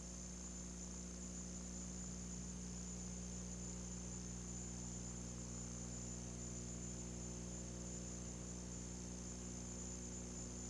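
Steady electrical hum with a thin high-pitched whine over faint hiss: the background noise of an old analogue video sound track with no programme on it.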